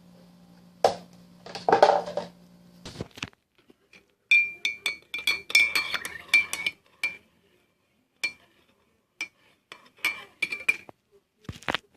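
A spoon stirring and clinking against a cup, each strike ringing; the clinks come fast for a few seconds from about four seconds in, then space out. Before that, a couple of seconds of knocks and handling noise over a faint low hum.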